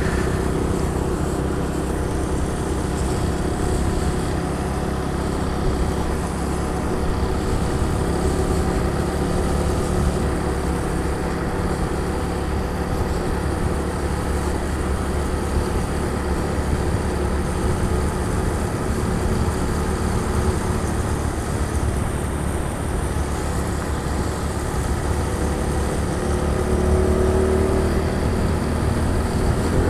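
Honda Pop 110i's small air-cooled single-cylinder engine running while riding, under a steady rushing noise, picking up slightly near the end.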